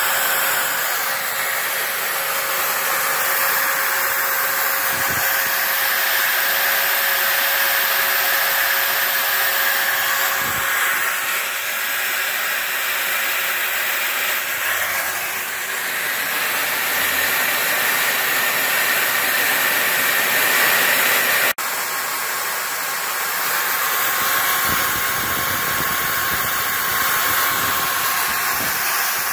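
Electric router motor on a CNC mill running steadily at high speed while its bit shaves pink foam on a turning rotary table, during a slow, light finishing pass. The sound drops out sharply for a moment about two-thirds of the way through.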